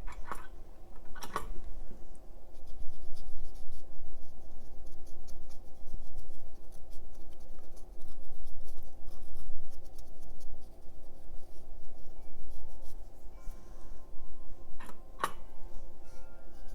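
Light scratching and tapping of small hand tools on a circuit-board workbench, with three sharp clicks, over a steady low hum.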